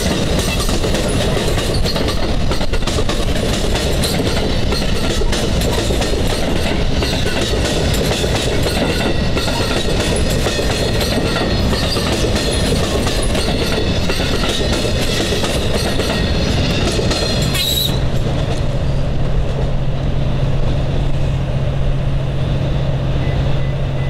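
An NJ Transit double-deck Multilevel commuter train passing close by at speed, with steady loud rail and wheel noise from the coaches. About three-quarters of the way through the high hiss drops away suddenly, leaving a duller rumble with a low steady hum.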